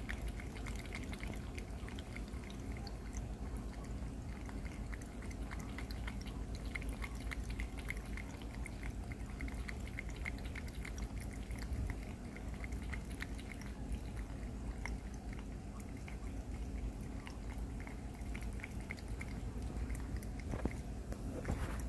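Domestic cat lapping water from a eufy pet water fountain: quick, steady laps over the trickle of water running down the fountain's stainless-steel top.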